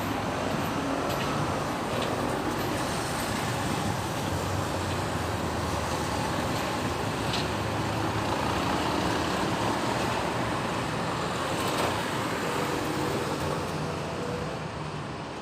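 Busy city road traffic: a steady rumble and hiss of cars, buses and trucks going by, with a few faint knocks, easing off a little near the end.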